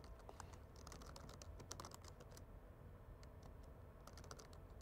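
Faint computer keyboard typing: quick runs of keystrokes, with a pause of about a second midway before a few more keys.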